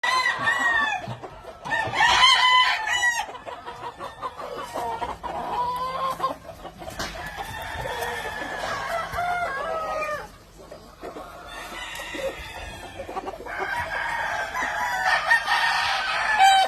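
Gamefowl roosters crowing again and again, with clucking between the crows.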